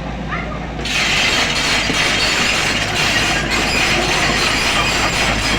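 SANY SY55C mini excavator's diesel engine running under load, joined about a second in by a loud, continuous metallic scraping and clanking from the machine working the road surface.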